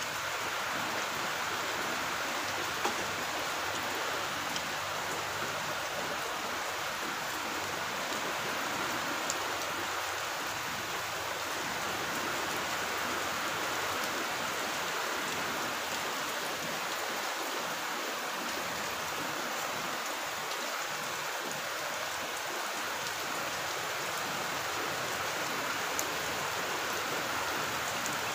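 Steady rain falling, an even hiss that holds level throughout, with a few faint clicks.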